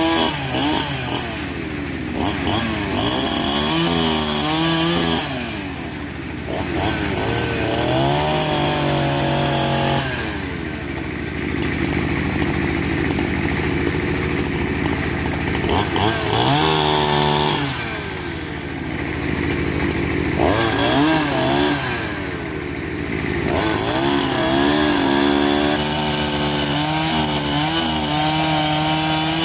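Petrol chainsaw cutting a log. Its engine revs up and down in repeated bursts and drops back to a lower, steadier note between cuts.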